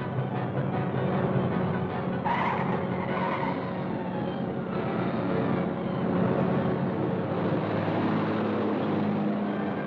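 Old film sound effects of a speeding car: a steady engine drone under road noise, with a tire squeal about two seconds in.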